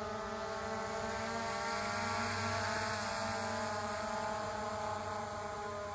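Skydio 2 quadcopter's propellers giving a steady multi-toned whine in flight, the pitch rising slightly toward the middle and easing back down.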